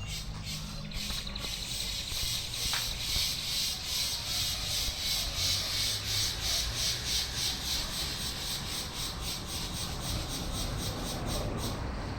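Dog gnawing at a coconut husk: continuous scratchy rasping of teeth tearing at the fibre, loudest through the middle stretch.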